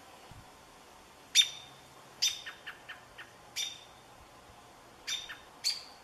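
Short, sharp bird calls: five loud calls spread over a few seconds, with a quick run of four softer ones after the second.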